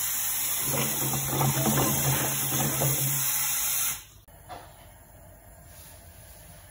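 Kitchen tap running hard onto rice cakes in a stainless steel bowl, rinsing them, with a low steady hum underneath; the water stops suddenly about four seconds in, leaving only faint room sound.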